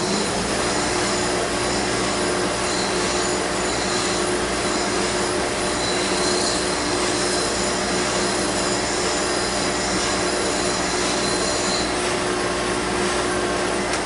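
Spindle sander running with a wooden carving blank pressed lightly against its sanding drum: a steady motor hum under the rasp of abrasive on wood. The high rasping part stops about two seconds before the end while the machine keeps running.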